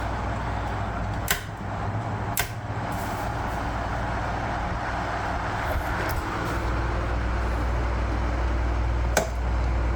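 1973 National F-30AAD table fan running, its motor humming steadily under the rush of air from its shark-fin blades, and getting slightly louder about two-thirds of the way through. Three sharp clicks stand out over it.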